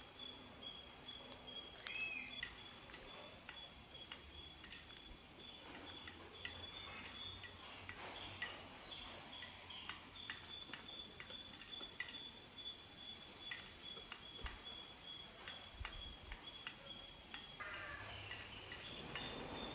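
Faint, scattered clicks of a peacock's beak pecking cooked rice from a steel plate, over a steady high insect trill.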